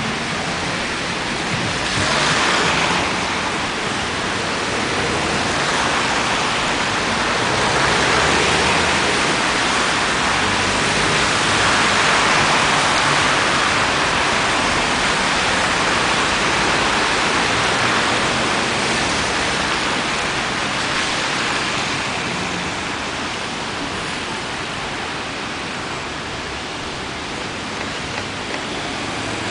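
Road traffic on a wet street: a steady hiss of tyres on wet tarmac and engines, swelling as vehicles pass and easing off near the end.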